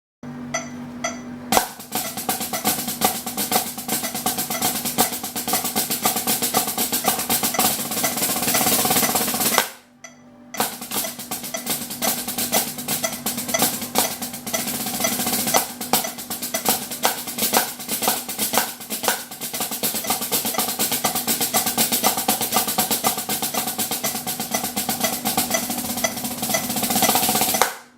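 Hecos H-250T practice pad with snare wires, played with drumsticks, giving a snare-drum-like buzz: a few single strokes, then fast rolls and rudiments. The playing swells in loudness, stops briefly about ten seconds in, resumes, and builds again before stopping near the end.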